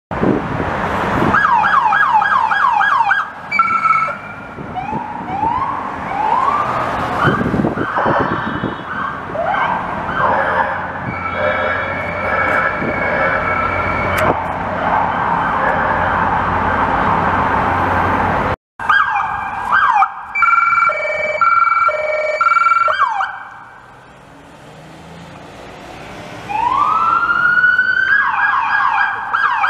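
Police car sirens switching between a slow rising wail and a fast yelp, with short steady blaring horn tones in between, over street traffic. The sound cuts out abruptly about two-thirds of the way through, then comes back with more yelping. It drops low for a few seconds and rises into a wail and yelp again near the end.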